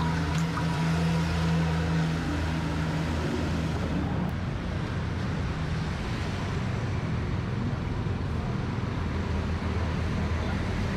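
Road traffic noise: a steady rush of passing vehicles, with a motor vehicle's engine running close by for the first few seconds before it fades.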